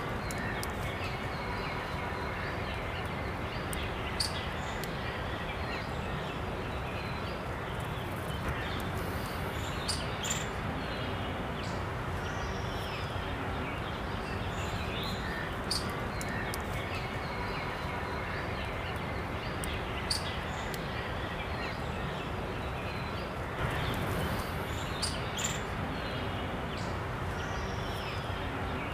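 Outdoor ambience: a steady background hiss with scattered faint bird chirps and a few soft clicks.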